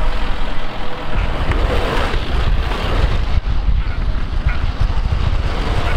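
Engine of a manure-piling loader running, with wind rumbling on the microphone; the low rumble grows stronger about a second in.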